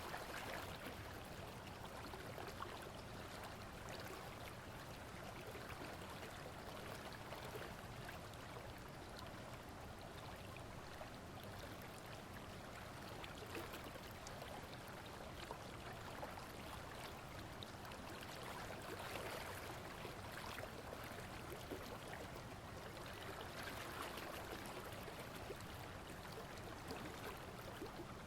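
Steady rush of flowing water, with many small splashes flickering through it.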